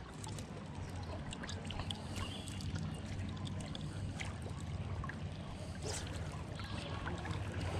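River water lapping and swirling close to the microphone, a steady low wash with a few faint ticks.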